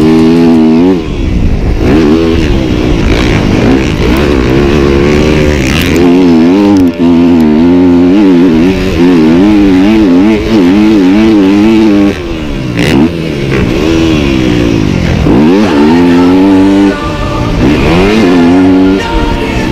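Yamaha YZ250F's four-stroke single-cylinder engine ridden hard, revving up and falling off again and again as the throttle is opened and shut. Through the middle the pitch swings quickly up and down for several seconds.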